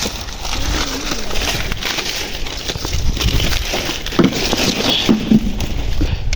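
Dry maize stalks, leaves and husks rustling and crackling as cobs are picked by hand, with a few louder cracks in the second half. The crop is drought-parched and very dry.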